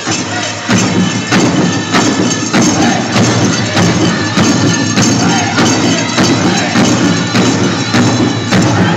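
Powwow drum group playing for the men's chicken dance: a large drum struck in a steady beat, a little under two strokes a second, under the singers' voices.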